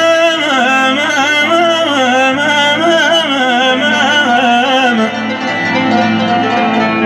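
Middle Eastern folk music: a single ornamented melodic line that winds up and down over a steady accompaniment, then settles into held tones about five seconds in.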